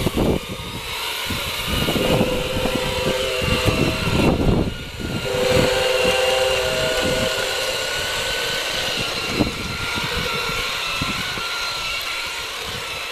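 Two battery-powered model locomotives running coupled together along the track, their small electric motors and gears giving a steady whine, over an irregular low rumble.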